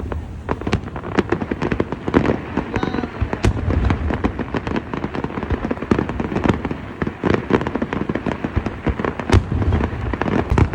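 Fireworks display going off: a rapid, unbroken string of sharp bangs and crackles, with heavier deep booms every few seconds.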